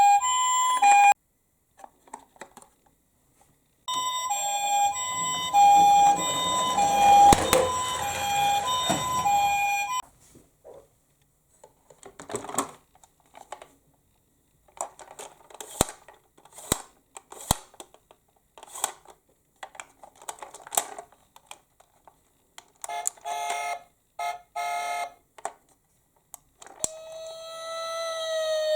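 Toy minicar's electronic siren alternating between two tones, hi-lo: briefly at the start, then again for about six seconds with a rushing noise under it. After that come scattered plastic clicks and knocks, and near the end a wailing siren begins, falling in pitch.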